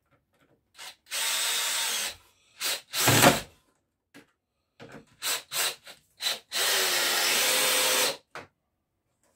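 Cordless DeWalt drill-driver driving screws into a pine rail: two steady runs of about a second and a half each, with short trigger blips between them and a louder burst about three seconds in.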